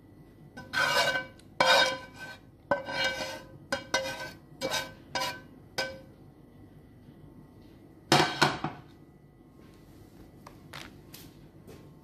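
A metal spoon clinking and scraping against cookware as cream sauce is spooned over the steaks: a run of about seven short ringing clinks, then one louder clink about 8 seconds in and a few faint ticks near the end.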